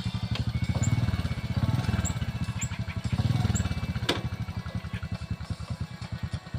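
A small engine running nearby with a rapid low putter that swells twice, then fades near the end. A few short, high bird chirps sound over it.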